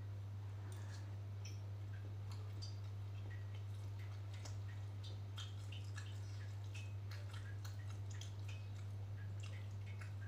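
Close-up eating sounds: wet chewing and lip-smacking on spoonfuls of bakso and rice, with light clicks of a metal spoon on a glass bowl, as many short sharp clicks. A steady low hum lies under it all.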